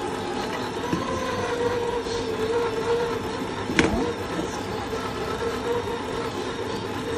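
Steady electric motor hum, slightly wavering in pitch, with a single sharp click about four seconds in.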